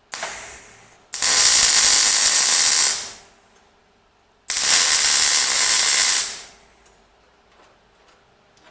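MIG welder laying two spot welds on a steel offcut, each about two seconds of loud, even crackling hiss, with a shorter burst just before them. These are test welds to set the welder up for bodywork.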